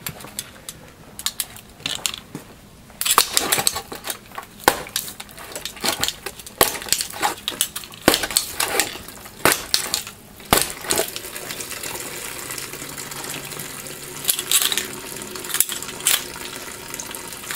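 Metal finger blades of a home-built Freddy Krueger–style glove, cut from 16-gauge metal, stabbing a paper carton: irregular sharp metallic clinks and rattles of the blades with punctures and knocks, thickest in the first ten seconds or so and thinning to a few clicks near the end.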